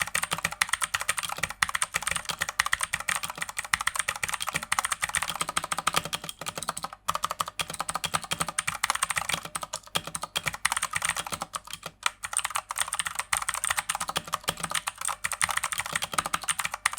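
Fast typing on a Redragon Kumara K552 mechanical keyboard fitted with blue switches: a dense, continuous stream of sharp keystroke clicks. It breaks briefly about seven seconds in and again about twelve seconds in.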